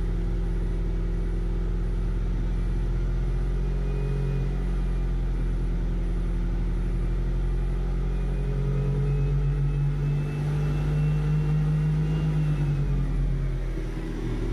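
Toyota Noah's engine running with the CVT in drive, a steady low hum. From about four seconds in a faint whine slowly rises in pitch, and the engine note climbs with it, before both fall back near the end.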